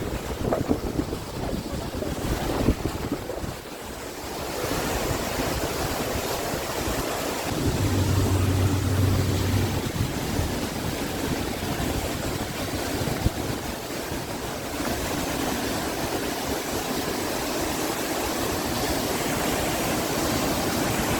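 Ludlow Falls waterfall making a steady, loud rushing roar of falling water, which fills in fully about four seconds in. A brief low hum sits under it a few seconds later.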